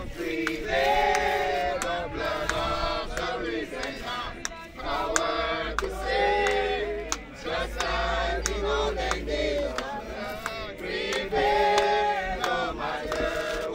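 A congregation of men and women singing a hymn together, in phrases a second or two long with short breaks between them.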